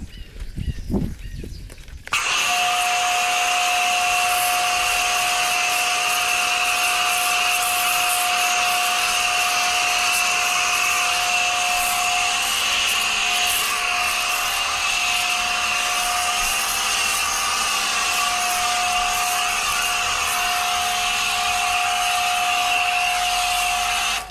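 Pressure washer spraying through a foam cannon: a steady high hum from the machine under a hiss of spray, starting about two seconds in after a few quieter knocks.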